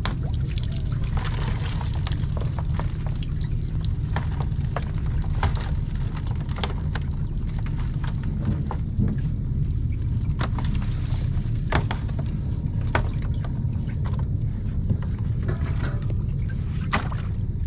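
Water pouring and splashing as plastic fish crates are dipped in the river and lifted out, draining, with scattered knocks of the crates against the wooden boat. A steady low rumble runs underneath.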